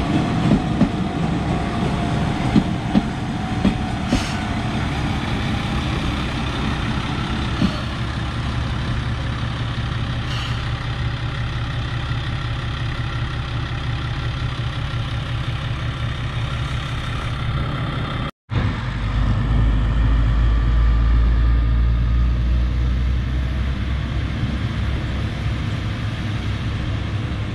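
Heavy vehicle engine running with a steady low rumble and faint steady tones above it. It cuts off abruptly about two-thirds through, then comes back as a deeper, louder rumble.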